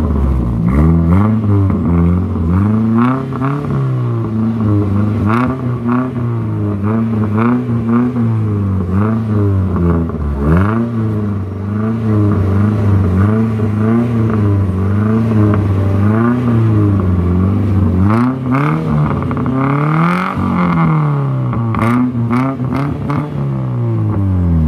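Car engine with an aftermarket sport exhaust being revved again and again in short blips, its note rising and falling, with one longer, higher rev near the end before it drops back down.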